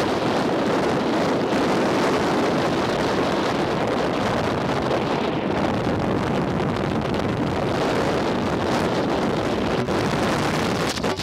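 Pacific Ocean surf washing in as a steady, loud rush, with wind buffeting the microphone.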